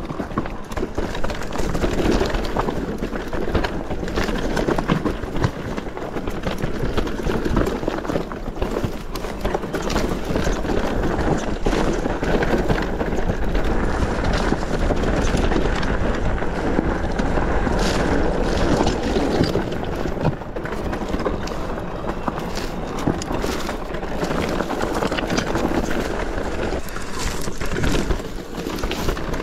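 Mountain bike riding downhill over rough, stony trail: a steady rush of tyre noise with constant rattling clicks and knocks from the bike over the bumps, and wind buffeting the microphone.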